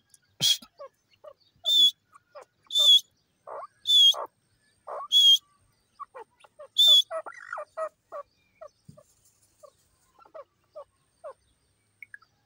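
Grey francolin calling: six loud, shrill, short notes about a second apart over the first seven seconds. Many soft, lower short notes run between and after them.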